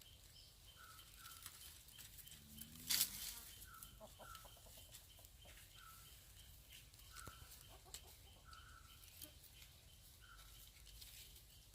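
Chickens clucking faintly. A pair of short, high chirps repeats every second or so, and there is one brief loud rustle about three seconds in.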